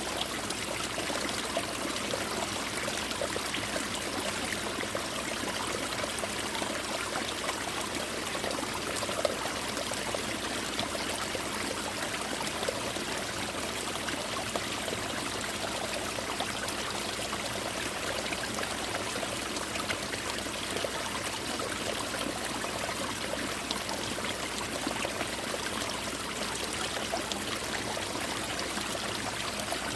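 Mountain stream water pouring and splashing onto ice-covered rocks, falling like rain: a steady, even rush of water with fine scattered droplet splashes.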